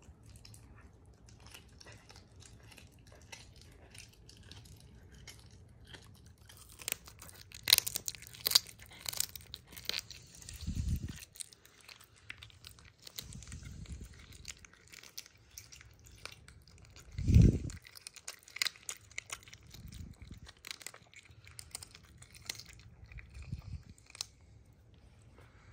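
A serval chewing and crunching a raw chicken wing, with a run of sharp crunches and clicks as its teeth work through the meat and bone, thickest about a third of the way in. Several dull low thumps come in between, the loudest about two-thirds through.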